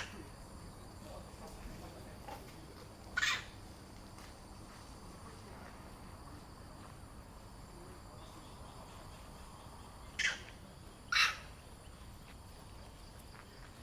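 Three short, sharp animal calls: one a few seconds in, then two about a second apart later on, over a faint steady background.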